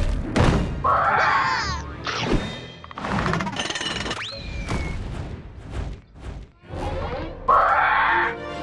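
Cartoon soundtrack: music under a run of thumps, whacks and crashes, with a short yell about a second and a half in and two loud bursts of sound effects, one about a second in and one near the end.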